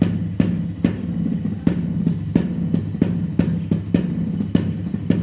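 Background music with a steady drum beat over a bass line.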